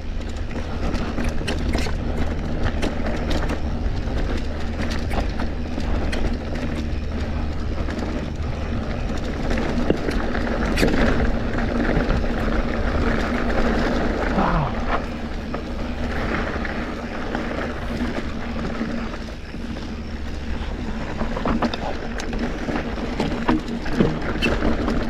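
Mountain bike being ridden over bare rock slabs: a steady rumble of wind on the action camera's microphone, with frequent clicks and knocks from the tyres and bike rattling over the rock.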